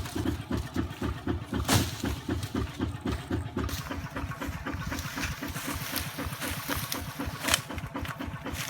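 Kubota RT155 single-cylinder diesel engine of a farm truck running with a steady chug, about six beats a second. Two sharp bangs cut through it, one just under two seconds in and one near the end.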